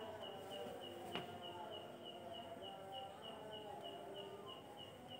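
Faint insect chirping in the background, short even chirps about three a second, with a single soft click about a second in.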